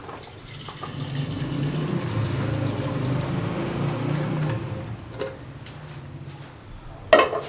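Boiled chickpeas and their cooking water poured from a pan into a steel strainer sitting in a bowl, the water splashing and filling the bowl for about four seconds. A sharp knock near the end.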